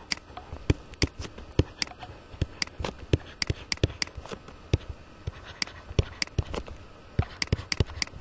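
Pen stylus tapping on a tablet surface during handwriting: irregular sharp clicks, several a second, with no voice over them.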